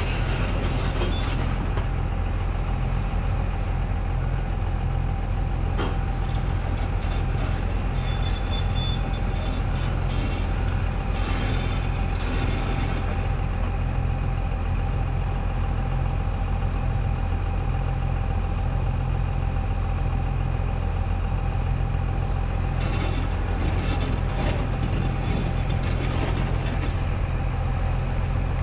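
Excavator's diesel engine running steadily under load, with a few scattered clanks of its machinery working rock.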